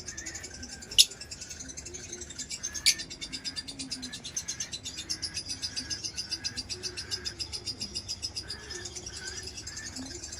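Lovebirds chirping: a fast, continuous high-pitched chatter of rapid pulses, with short chirps repeating underneath. Two sharp clicks stand out, about a second in and again near three seconds.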